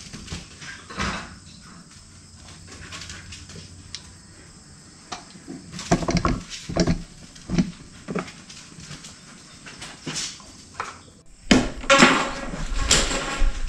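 Tools and a caulking gun being handled on a wooden workbench: a run of separate knocks and clicks, then a louder cluster of clatter near the end.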